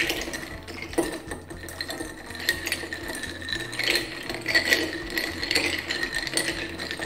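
Bar spoon stirring ice cubes in a glass tumbler: a continuous, rapid clinking and rattling of ice against the glass.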